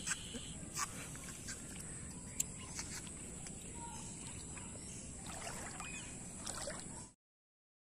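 Faint outdoor ambience at a still pond: a steady hiss with a constant high-pitched drone and a few small scattered clicks. It cuts to silence near the end.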